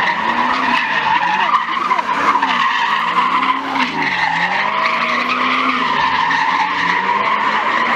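Muscle car's tyres squealing continuously as it spins donuts. Its engine revs rise and fall underneath, dropping briefly about halfway through.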